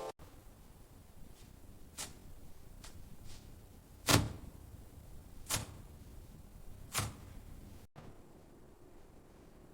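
A few light clicks, then three sharp knocks about a second and a half apart, the first the loudest.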